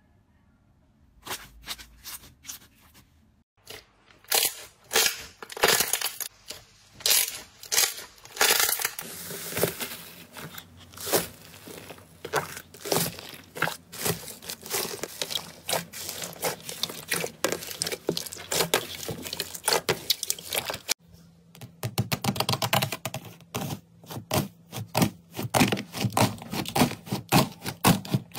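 Hands pressing, squeezing and kneading slime, making rapid trains of crackling and popping clicks. It is nearly silent for the first second, and the crackling is faster after a short pause about 21 seconds in.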